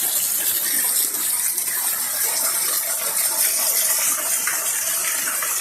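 Heavy rain falling hard, a steady hiss, with water gushing and splashing.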